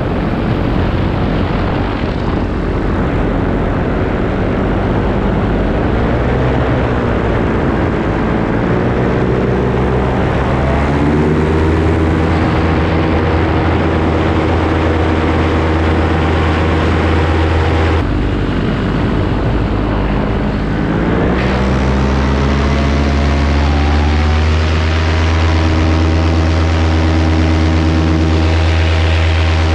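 Paramotor engine and propeller running at flight power. The engine note drops and climbs as the throttle is worked, rising markedly about a third of the way in and again about two-thirds of the way through.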